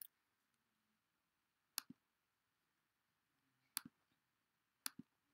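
Computer mouse clicking: about four short, sharp clicks a second or so apart over near silence, two of them quick press-and-release pairs.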